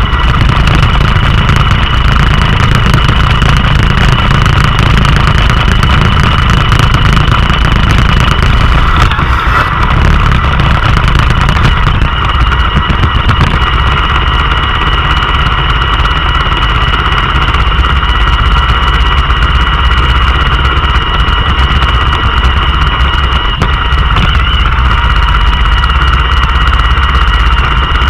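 Roomba robot vacuum running, heard up close from a camera riding on it: a steady whine with several high tones over a low rumble.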